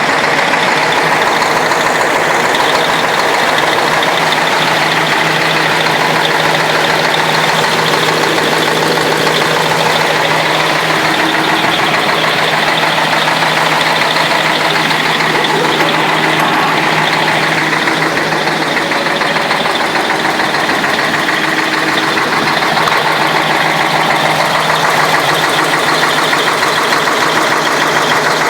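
YaMZ-6581.10 V8 turbodiesel idling steadily, with a knock whose cause the owner can't make out.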